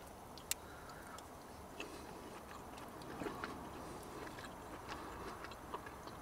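Quiet eating: a fork clicks a few times against a plastic takeaway container, with faint chewing, over a low steady rush of running water from a stream.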